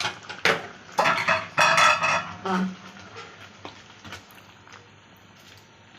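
A spoon scraping and clinking against a cooking pot as meat in tomato juice is stirred, with a run of quick scrapes in the first two seconds or so, then quieter.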